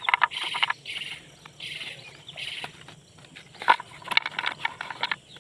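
Short high chirps repeating every half second or so in the background, with sharp clicks and taps of slate pencils being handled and counted, the loudest click a little past the middle.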